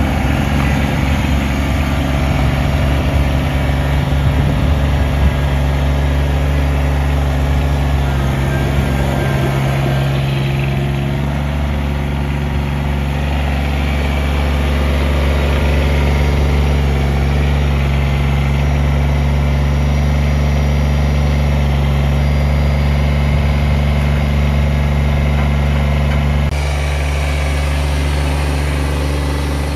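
Kubota sub-compact tractor's three-cylinder diesel engine running at a steady speed while the tractor is driven slowly over gravel. A few seconds before the end the sound shifts abruptly and drops a little in level.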